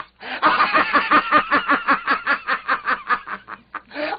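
A person laughing in quick, even chuckles, about seven a second, after a brief pause just at the start.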